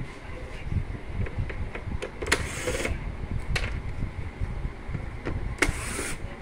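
Corded electric screwdriver whirring in two short bursts, each about half a second, as it backs out the screws holding the tower fan's plastic back cover. Small clicks and knocks from handling the tool and the fan body come between the bursts.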